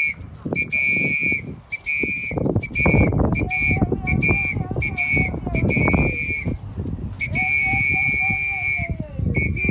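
A whistle blown again and again at one steady high pitch, in about nine blasts: mostly short toots, with one longer held blast near the end.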